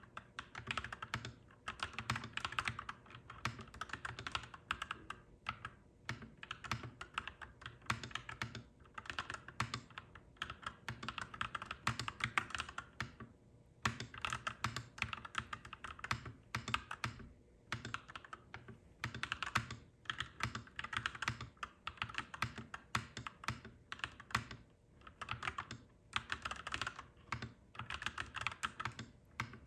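Clacky mechanical keyboard being typed on in fast, dense runs of keystrokes, broken by short pauses every few seconds.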